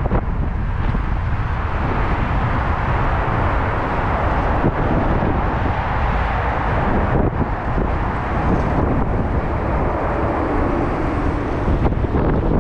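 Wind rushing over the microphone while riding a bicycle: a loud, steady rush with no pauses.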